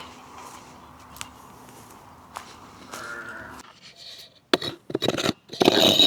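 Faint clicks, then a few short, rough scraping strokes about four and a half seconds in and again near the end, the loudest sounds here.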